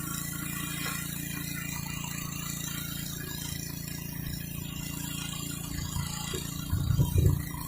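Gas-engine pressure washer running steadily, its high-pressure water spray hissing against concrete, with a few louder low rumbles near the end.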